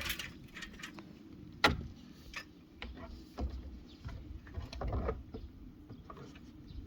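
Irregular clicks and knocks of plastic shed parts being handled and fitted, with one sharp knock about a second and a half in and a few dull thuds a little later.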